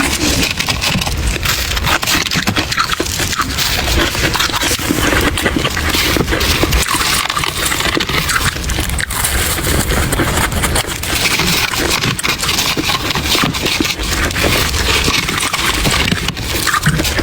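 Close-miked chewing and crunching of soft freezer frost: a dense, continuous crackle of many small crunches.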